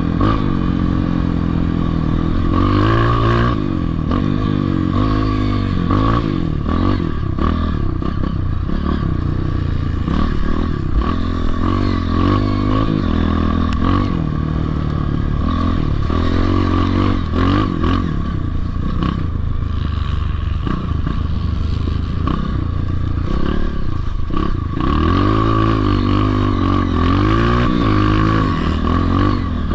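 Dirt bike engine revving up and dropping back again and again as it is ridden around a track, with rattling and clatter from the bike.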